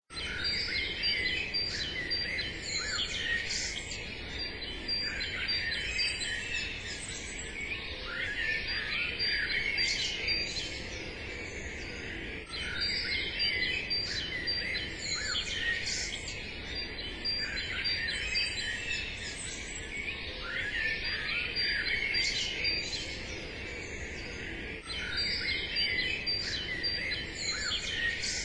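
A chorus of songbirds chirping and trilling, many short overlapping calls.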